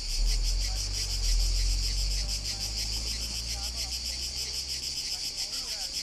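A chorus of cicadas singing in the trees: a steady, high, rapidly pulsing buzz. A low rumble on the microphone sits under it for the first couple of seconds.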